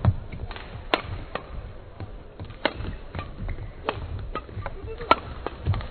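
Badminton rally: rackets striking the shuttlecock in a string of sharp cracks, the loudest about one second in and about five seconds in, with players' footfalls on the court between hits.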